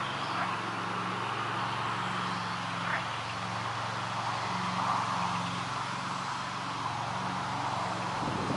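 Steady wind noise outdoors with a low, even hum underneath.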